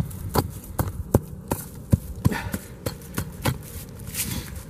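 A short-handled digging hammer chopping into frozen ground, about a dozen sharp strikes in a steady rhythm of two to three a second that stop about three and a half seconds in, followed by a brief rustle. The soil is frozen hard and is being chipped out to dig a trap bed.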